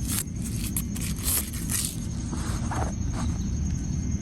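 Scattered light scrapes and rustles of the screwdriver being handled, over a steady low background rumble.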